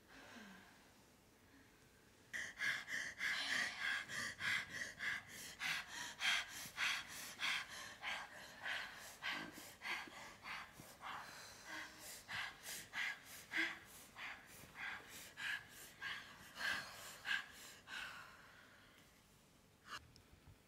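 Dancers breathing hard and rhythmically through the mouth, quick audible breaths at about two to three a second, starting about two seconds in and stopping a few seconds before the end.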